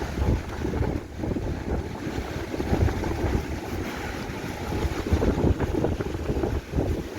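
Wind buffeting the microphone: an uneven, gusting low noise that swells and eases every second or so.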